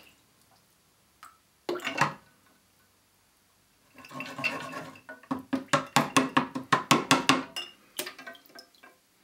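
A glass bottle in pans of water: a short splash about two seconds in, then water sloshing and ice cubes clinking against the bottle and the pan for about four seconds as it is plunged into ice water. This is a thermal-shock attempt to crack the bottom off the bottle, and the glass does not crack.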